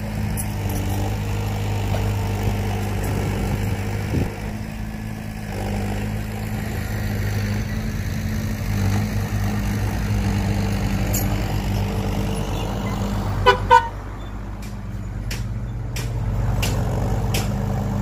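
Heavy diesel earthmoving machinery running steadily, with two short horn toots in quick succession late on.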